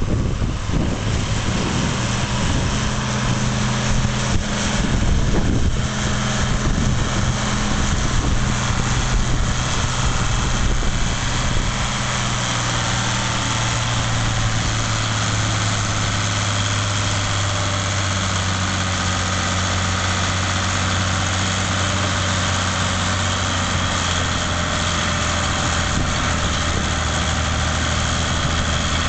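John Deere 4000 farm tractor engine running hard under load as the tractor pulls a weight transfer sled. It is a steady, heavy drone whose note drops slightly in the second half.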